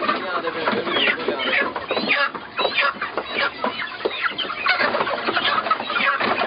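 A crateful of broiler chickens clucking and squawking, a dense, unbroken din of many overlapping calls, as the birds are grabbed and handled during catching.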